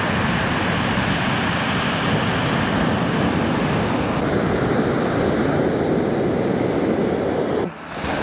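Ocean surf rushing steadily on the beach, with wind on the microphone. The noise drops away briefly near the end.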